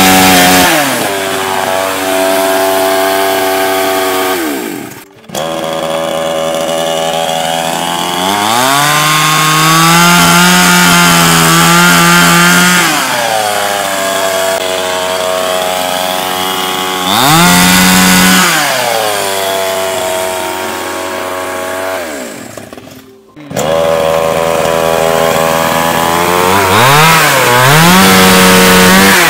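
Two-stroke petrol chainsaw running and cutting green wood. It revs up to high speed and drops back to idle several times, and the sound briefly cuts out twice.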